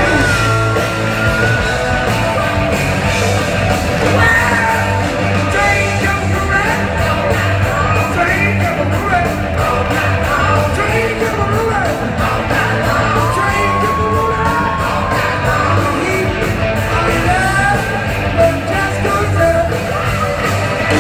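Live rock band playing loudly, with electric guitars, bass and drums keeping a steady beat, and singing on top that holds long notes and slides in pitch.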